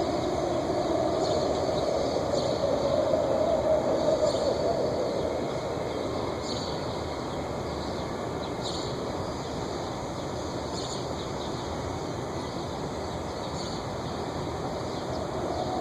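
A drawn-out, trumpet-like drone, the strange sound heard in the sky, sustained over a steady city rumble. It fades out about five seconds in and swells back near the end, with faint short high chirps now and then.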